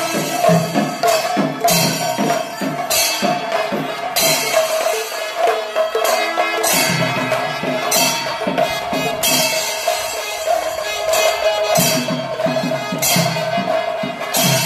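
Kerala temple percussion ensemble playing live: dense, rhythmic drumming with spells of clashing hand cymbals, over one steady held high note.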